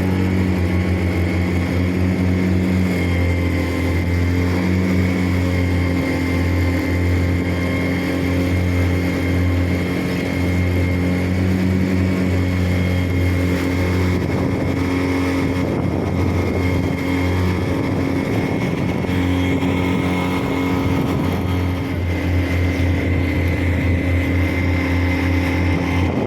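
A fishing boat's motor running steadily under way, a loud, even drone.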